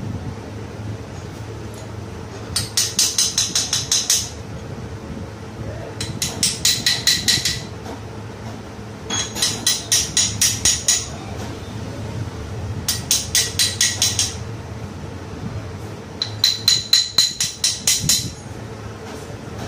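Small hammer tapping on the cloth-covered cast-iron cylinder barrel of an old Royal Enfield Bullet engine: five quick runs of about eight to ten sharp metallic strikes each, a few seconds apart, with a ringing tone.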